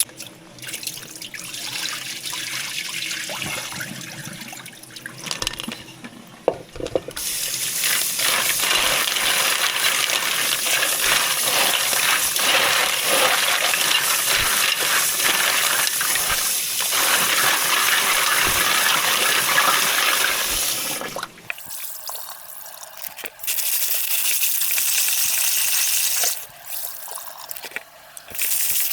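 Water running from a tap into a sink, a steady gush that swells about seven seconds in, stops about two-thirds of the way through, then comes back in short runs with pauses between.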